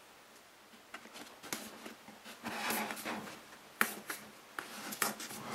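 Hands pressing and rubbing a soft foam reinforcement strip into place inside a soft foam mask shell: scattered light clicks and taps, with a longer rubbing sound about halfway through.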